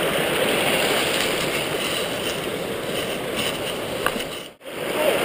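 Rain-swollen mountain stream rushing over rocks: a steady noisy wash of water that drops out for a moment near the end.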